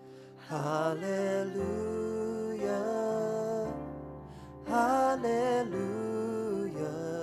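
Slow worship song: a singer's melody over soft instrumental accompaniment, with sung phrases entering about half a second and about five seconds in.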